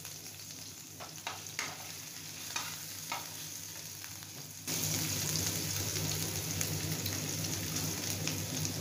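Ginger-garlic paste sizzling in hot oil in a stainless steel pan, with a few short scrapes of a metal slotted spoon stirring it in the first half. The sizzle jumps suddenly louder about halfway through.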